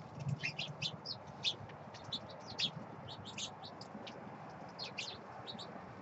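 Small songbirds chirping, many short high chirps in quick succession.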